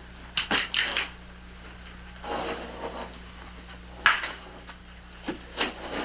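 A few short knocks and scuffling sounds of people moving about a wooden table and chairs, the sharpest knock about four seconds in, over a steady low hum.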